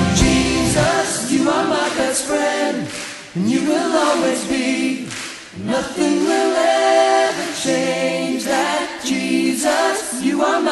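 Choir singing unaccompanied in a worship song, after the band's low accompaniment cuts out about a second in.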